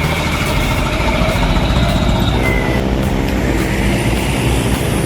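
Heavy truck engine working hard on a rough, muddy road, with knocks from the truck over the potholes. The engine's note changes about two seconds in.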